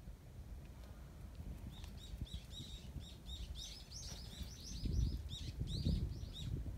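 A small songbird twittering, a rapid run of short high chirps at about five a second that starts about two seconds in and stops shortly before the end. Two low rumbles come near the end.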